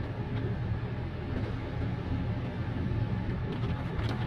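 Daihatsu car running in fourth gear on a wet road, heard from inside the cabin: a steady low engine hum under an even hiss of tyres and road noise.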